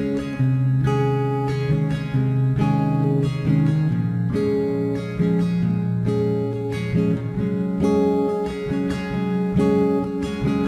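Background music played on acoustic guitar, plucked and strummed.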